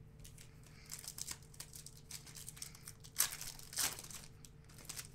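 Wrapper of a 2014-15 Panini Hoops basketball card pack being torn open and crinkled in the hands: a run of crackly rustles, loudest about three and four seconds in.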